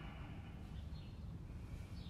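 Outdoor background: a steady low rumble with a couple of faint, short bird chirps.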